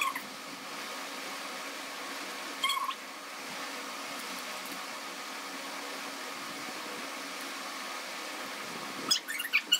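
Short, high, pitched animal calls, cat-like: one as it begins, one a little under three seconds in, and a quick run of several near the end, over a steady low hum.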